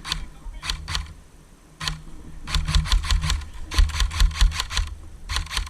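Airsoft guns firing in several rapid bursts of sharp shots, about ten a second.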